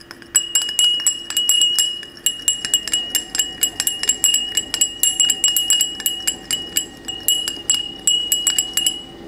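A stirrer clinking rapidly against a small glass container as fragrance oil is stirred into rubbing alcohol. The strikes come several a second, each leaving a bright ringing note. They stop shortly before the end.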